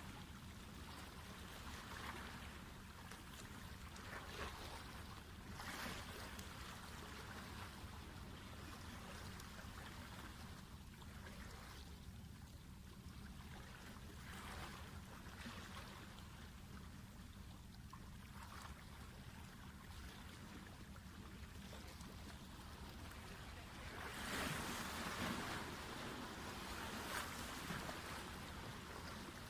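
Small waves washing against a rocky breakwater in repeated surges, the biggest about 24 seconds in, over a steady low hum.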